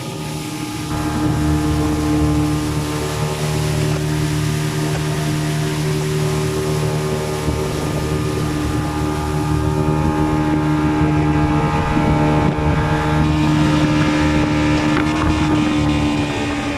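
A boat's engine running steadily, coming up to speed about a second in, with wind buffeting the microphone.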